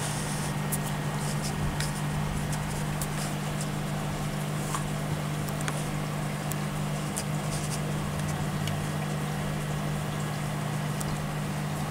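Steady low hum with an even hiss from aquarium equipment such as a filter pump, with scattered faint high clicks.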